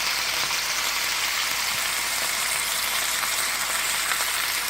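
Chicken thighs frying in oil in a hot pan: a steady sizzle.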